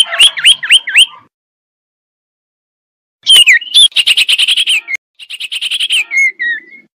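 Male common iora (cipoh) calling: a quick run of about four swooping whistled notes, then, after a pause of about two seconds, two rapid chattering trills, the second ending in lower falling notes. It is the male's call used to draw in females.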